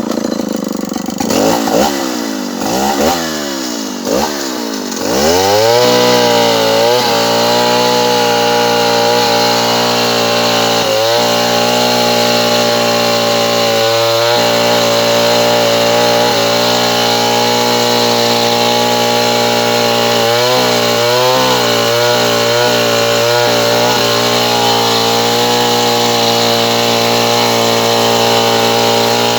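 Stihl 070 two-stroke chainsaw engine revving unevenly for about five seconds, then running flat out at a steady high pitch while sawing wood. Its pitch dips briefly a few times, once around eleven seconds in, again around fourteen, and in a cluster near twenty seconds.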